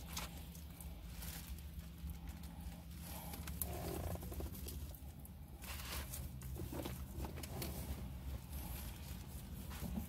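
Eating noises: chewing and mouth sounds with scattered clicks and rustles, over a steady low hum in a car's cabin.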